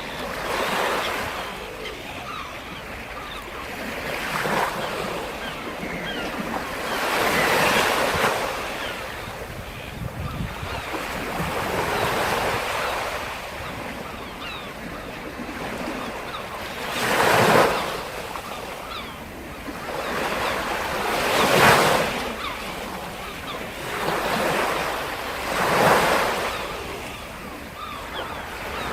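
Black Sea waves breaking on the shore: surf rushes in and fades away every few seconds, with a few larger breakers in the second half.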